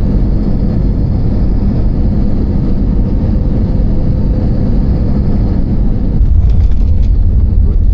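Steady, loud, low rumble of a jet airliner heard from inside the cabin, growing a little louder about six seconds in.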